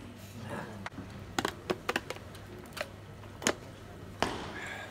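Table tennis rally: the plastic ball clicking sharply off the rackets and the table, about eight hits in irregular quick succession.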